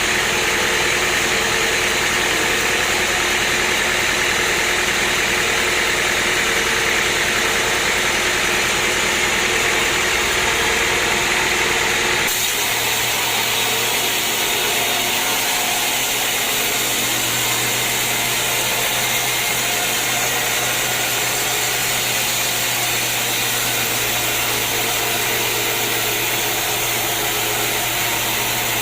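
Sawmill machinery running with a steady, loud mechanical noise. It changes abruptly about twelve seconds in, after which a steady low hum runs underneath.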